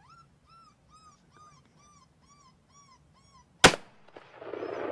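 A string of short, squeaky, rising-and-falling calls, about two and a half a second, like a predator call used to lure the bobcat. About three and a half seconds in they stop and a single loud gunshot cracks out, followed by a rough rushing noise that builds near the end.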